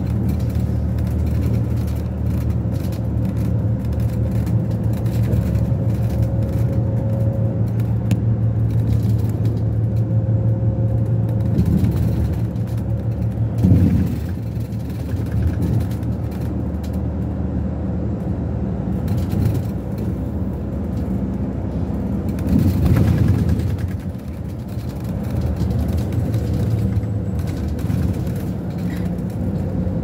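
City bus engine and road noise heard from inside the cabin while driving: a steady low rumble, with a short louder jolt about halfway through and a brief swell about three quarters of the way in.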